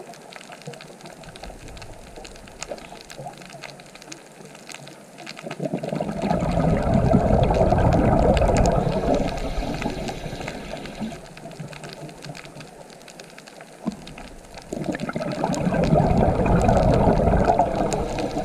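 Rushing water noise that swells up loudly twice, about six seconds in and again about fifteen seconds in, each swell lasting a few seconds before dying back.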